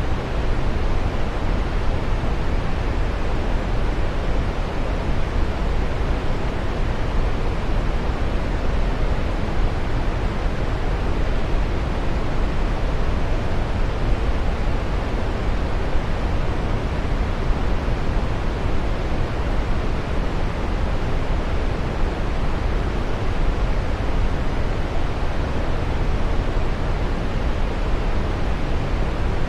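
Running water rushing steadily, an even, unbroken noise that is fullest in the low end.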